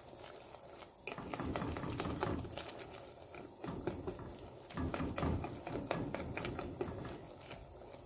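A whisk stirring and mashing boiling rice in its water in an enamel pot, with quick, irregular taps and scrapes against the pot and soft sloshing. The rice is being crushed so its own starch thickens the water for rice pudding.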